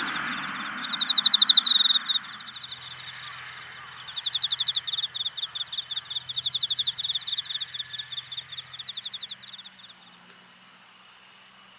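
A cricket chirping in rapid pulsed trills, a loud close burst about a second in, then a long, even run of trills from about four to ten seconds in. A low rush fades out over the first two seconds.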